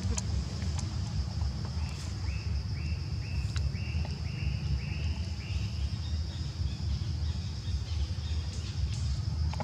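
Forest ambience: a steady high insect drone, with a run of short chirps repeating about twice a second from about two seconds in until near the end, over a constant low rumble.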